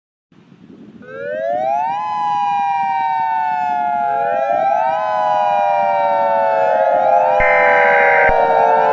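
Several overlapping warning sirens starting one after another, each winding up quickly and then sliding slowly down in pitch, over a low rumble. A short buzzing tone cuts in near the end.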